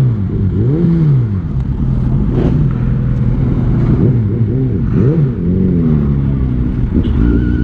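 Motorcycle engine at low speed in traffic, its pitch repeatedly swooping up and briefly back down as the throttle is blipped, about once a second in the first part and again around five seconds in, with steadier running in between.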